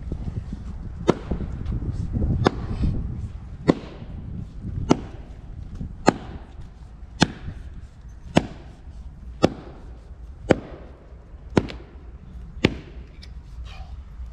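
Axe chopping into a log on the ground: a steady series of about eleven sharp hits, roughly one a second.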